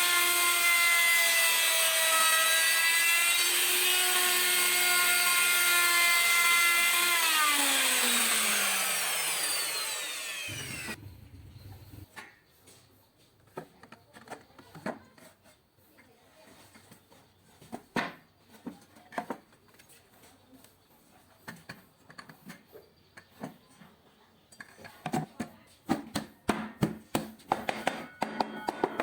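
Handheld cutting machine fitted with a circular saw blade, its motor running with a high whine that dips slightly in pitch, then switched off and winding down with a falling pitch over about three seconds. Then scattered light clicks and knocks, and near the end a quick run of sharp scraping and tapping.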